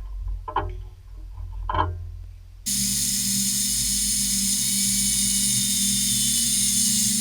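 A few light knocks, then about two and a half seconds in a motorized machine starts abruptly and runs on evenly with a low hum and a high hiss.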